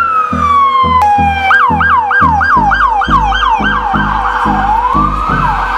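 Police car siren: one long falling wail, then a quick yelp of repeated sweeps about three a second, easing back into a slower rising wail near the end. Background music with a steady beat runs underneath.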